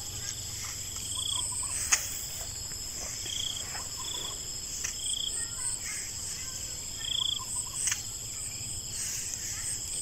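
Insects chirring steadily in a high, finely pulsing drone, with short, clear chirps now and then. A single sharp click comes about two seconds in.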